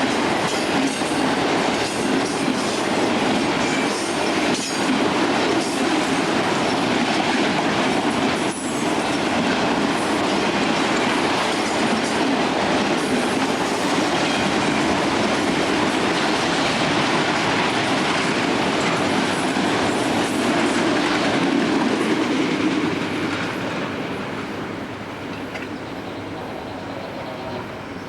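A train's railroad cars rolling past on the rails with a steady clatter of wheels over rail joints, a couple of sharp clanks along the way. The sound fades away near the end as the train moves off.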